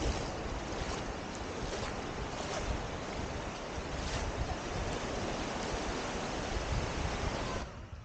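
Steady rushing of sea surf mixed with wind, with gusts buffeting the microphone in a low, uneven rumble; it cuts off abruptly near the end.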